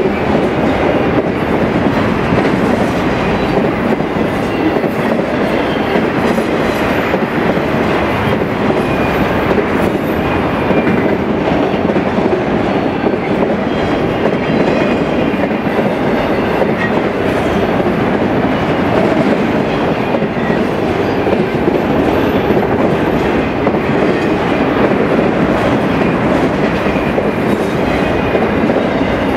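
A Union Pacific freight train's cars rolling past, their wheels running loudly and steadily on the rails.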